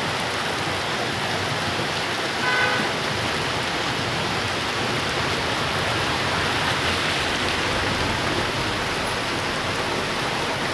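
Heavy rain pouring down, a steady dense hiss of rain hitting surfaces. About two and a half seconds in, a short pitched tone sounds briefly over it.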